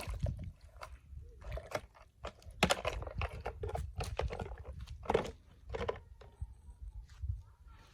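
Die-cast and plastic toy cars being handled and moved about, giving irregular clicks, knocks and rattles.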